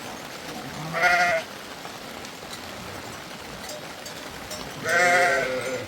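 Livestock bleating twice: a short bleat about a second in and a longer, wavering bleat near the end.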